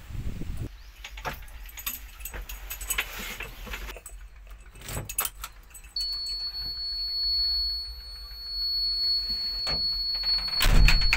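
Knocks, shuffles and keys jangling as someone climbs into a JCB 3DX backhoe loader's cab. About six seconds in, a steady high warning beep starts as the ignition key is switched on and holds. Near the end the cab door shuts with a heavy thud.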